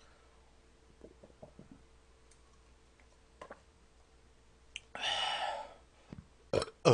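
Small plastic yogurt-drink bottles clicking and knocking against each other as they are handled on a tray, a few light clicks about a second in. A short noisy burst comes about five seconds in, and a loud short vocal sound with a falling pitch at the very end.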